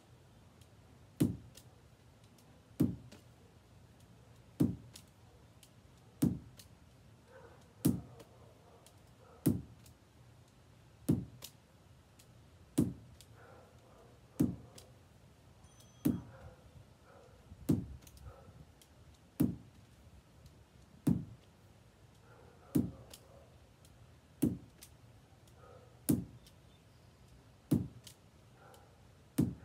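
A lacrosse ball landing in the pocket of a lacrosse stick over and over as it is tossed up and caught, a sharp knock with a dull thump about every second and a half.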